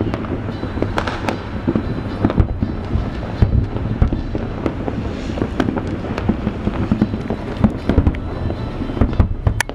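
Aerial fireworks shells bursting: many loud bangs in quick succession, with crackling between them.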